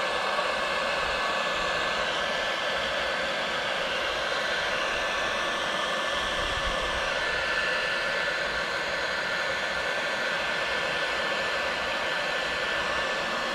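Electric heat gun running steadily, an even rush of blown air with a thin high whine, as it shrinks heat-shrink crimp terminals tight onto a power cable's wires.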